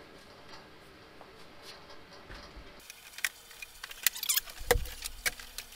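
Plastic ride-on car body and its wheeled axle being handled and lifted off a metal work table. It is quiet at first, then scattered light clicks, rattles and knocks begin about halfway through, with one dull thump.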